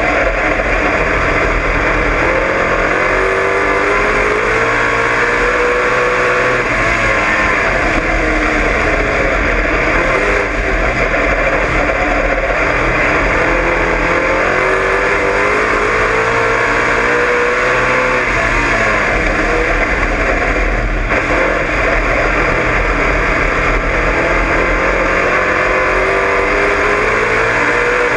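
Dirt-track race car's engine at racing speed, heard from inside the cockpit, its pitch climbing steadily three times and dropping back each time as the car powers down the straights and lifts for the turns.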